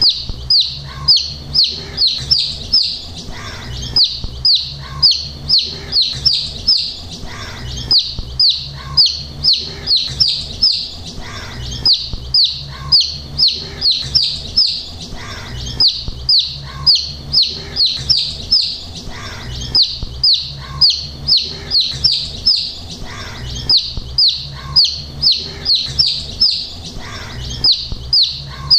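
A group of domestic chicks peeping continuously: rapid, high peeps, each sliding down in pitch, coming in bursts of several a second.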